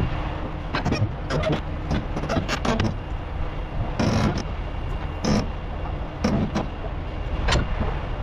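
Heavy diesel truck engine running steadily, with irregular knocks and clanks over it and a short hiss about four seconds in.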